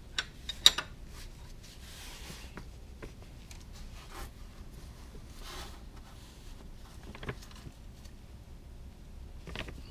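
Wrench being worked on a motorcycle's oil drain plug by gloved hands: a few sharp metallic clicks a little under a second in, then soft rubbing and handling sounds with single clicks later on.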